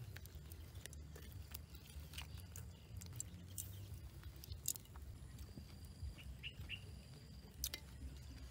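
Faint outdoor ambience: a steady low rumble with scattered sharp crackles and clicks, and a few short bird chirps about six and a half seconds in.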